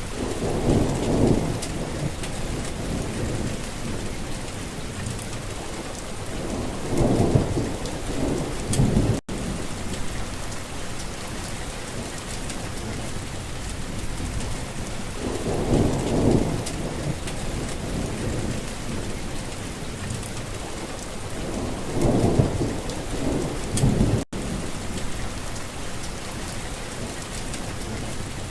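Steady heavy rain hissing on surfaces, with low rumbles of thunder rolling in four times. Two very brief dropouts cut the sound.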